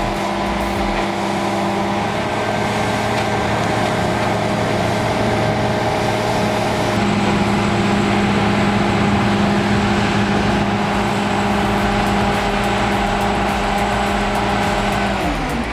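Heavy machine's engine running steadily under load, with a low even hum; the engine note drops just before the end.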